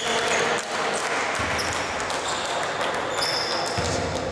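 Basketball game in a gymnasium: steady chatter from the crowd and players, with short high-pitched sneaker squeaks on the hardwood floor and a ball bouncing.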